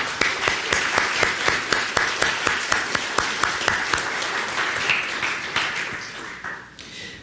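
A congregation applauding, with one nearby clapper's steady, evenly spaced claps standing out above the rest. The applause dies away near the end.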